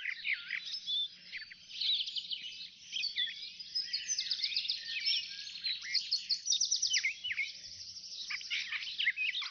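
Several songbirds singing at once: a busy mix of whistled and chirped notes with rapid trills.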